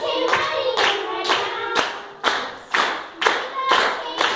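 Hands clapping a steady beat, about two claps a second, with voices singing along.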